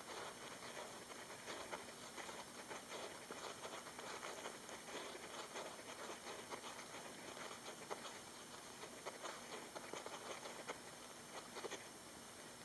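Roborovski hamster digging in fine sand: a faint, rapid patter of tiny scratches and scattering grains that starts at once and stops shortly before the end.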